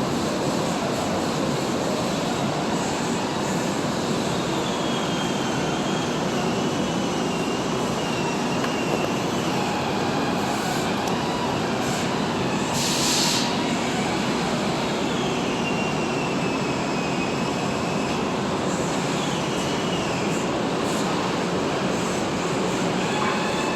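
TIG welding arc running steadily with a hiss, and a faint wavering high whine. There is a brief louder burst of hiss about halfway through.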